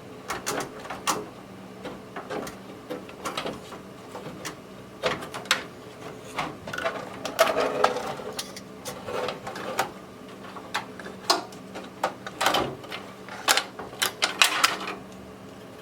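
Irregular clicks, knocks and rattles of a desktop PC motherboard being unplugged and worked out of its metal case, some in quick clusters, over a faint steady hum.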